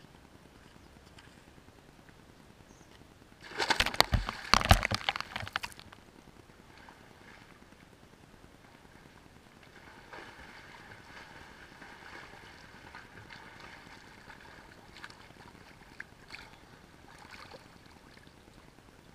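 A person plunging into a swimming pool: a loud, short splash about three and a half seconds in, lasting about two seconds. From about ten seconds on, quieter sloshing and lapping water with a few small splashes as the swimmer crosses the pool toward the edge.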